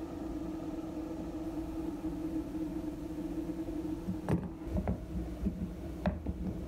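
A steady machine hum with a few sharp snips of thinning shears cutting a dog's hock hair, about four, five and six seconds in.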